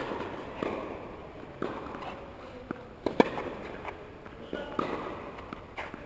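Tennis rally in an echoing indoor hall: sharp racket-on-ball hits and ball bounces every second or so, the loudest right at the start and about three seconds in.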